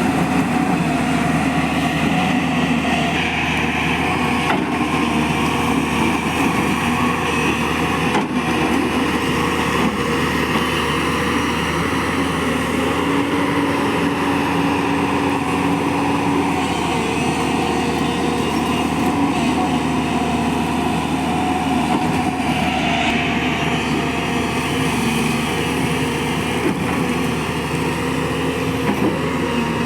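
A JCB excavator's diesel engine runs steadily at working revs, its pitch shifting slightly. There are a couple of faint knocks about a quarter of the way in.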